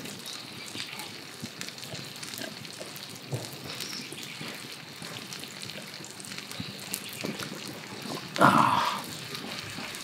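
Wood campfire crackling softly with small scattered pops. Near the end comes a short, loud, breathy exhale, the 'ah' of a drinker who has just swallowed a mouthful of beer.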